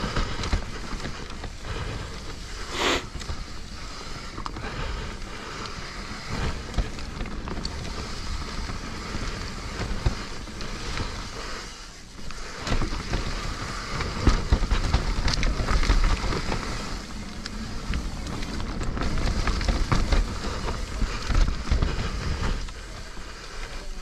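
Mountain bike riding fast down a dirt singletrack, heard from a GoPro on the bike: tyres rolling over the dirt, the bike rattling and knocking over bumps, and wind rushing over the microphone. It eases off briefly about halfway through.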